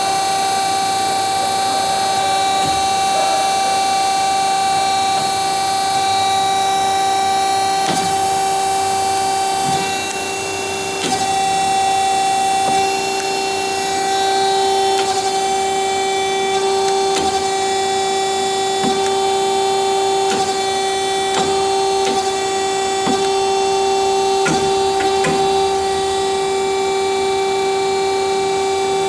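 DoAll TF-2021NC automatic vertical bandsaw running: a steady whine with a strong overtone, with scattered sharp clicks.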